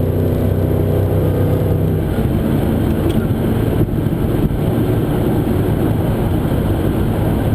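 Supercharged 6-litre V8 of a VE Commodore ute, with a built manualised 4L80E automatic, pulling hard after a downshift to overtake. A steady engine note gives way about two seconds in to a noisier, fuller sound as it keeps accelerating.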